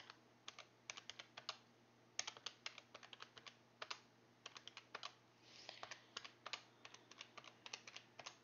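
Faint clicking of the keys on a J.Burrows desktop calculator, tapped in quick runs with short pauses between them as figures are entered.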